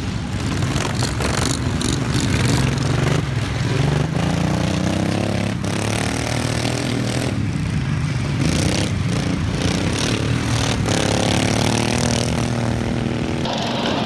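Racing ride-on lawn mower engines running hard, their pitch rising and falling as they speed up and slow down, with a few sharp knocks and clatter.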